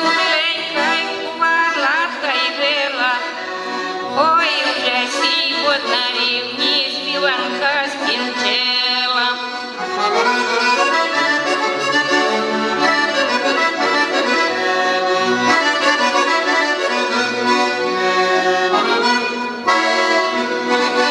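Accordion playing a folk melody with ornamented, wavering runs as the instrumental close of a Ukrainian folk ballad.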